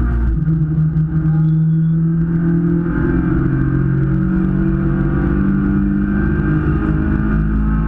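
Super 1600 class race car's engine running hard at high revs, heard from inside the cabin, with a steady, even note.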